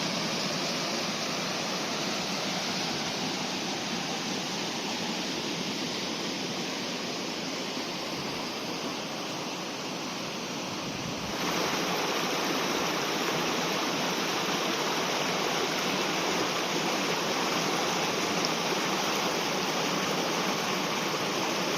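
Small waterfalls on a moorland river, the water rushing steadily over the falls. About eleven seconds in the rushing suddenly becomes a little louder and fuller.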